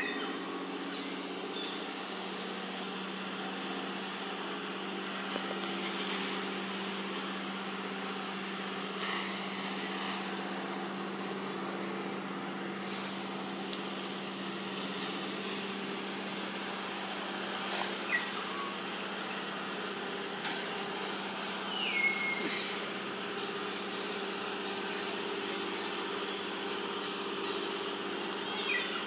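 A steady, low motor hum, like an engine running, with a few short, high, falling chirps about two-thirds of the way through and again near the end.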